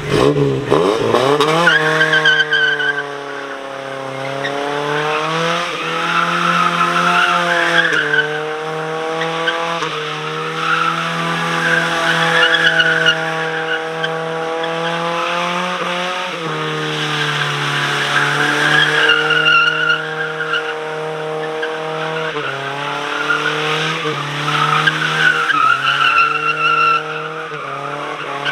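A vehicle engine revved hard, its pitch climbing sharply in the first second or two, then held at high revs for the rest of the time, the pitch swaying up and down every couple of seconds.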